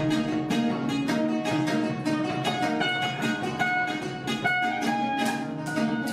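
A guitar and a kenora, an ancestral plucked string instrument, improvising together: a quick, steady run of plucked notes over strings left ringing.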